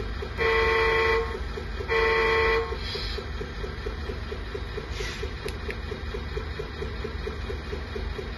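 A 1/14 RC truck's sound module plays two truck-horn blasts through its speaker, each under a second long. Underneath runs a simulated diesel engine idle with a steady rapid beat, and a short hiss comes about five seconds in.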